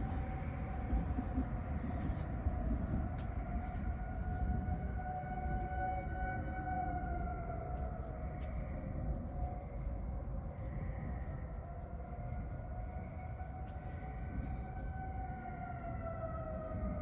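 Outdoor warning sirens sounding the attack signal: a wavering tone that rises and falls over and over, with more than one siren overlapping. Crickets chirp steadily in the background.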